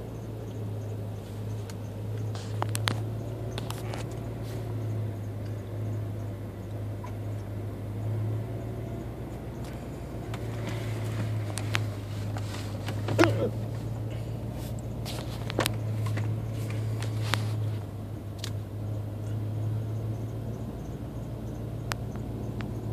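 A man's hiccups: a series of short, sharp hiccups every few seconds, the loudest about thirteen seconds in, over a steady low hum.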